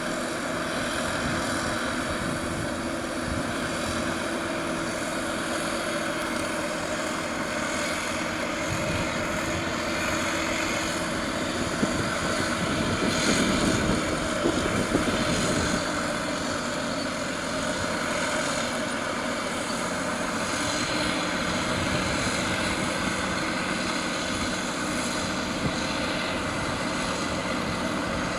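Caterpillar D6R bulldozer's diesel engine running steadily while it pushes dirt, growing louder for a few seconds around the middle.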